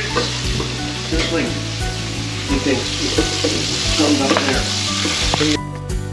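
Fish frying in hot oil: a steady sizzle that cuts off suddenly near the end, over background music.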